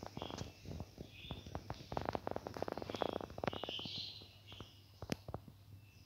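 Budgerigars giving short, high chirps over a dense patter of crisp clicks and crackles, busiest from about two to four seconds in, with one sharp click near the end.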